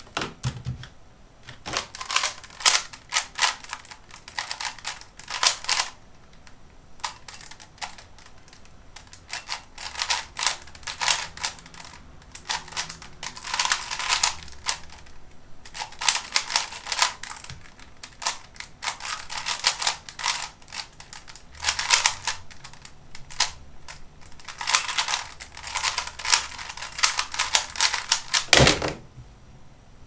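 Type C DIY 3x3 speedcube being turned fast during a timed solve: rapid plastic clicking in bursts of a second or two, with short pauses between them. Near the end comes one loud thump as the cube is put down and the timer stopped.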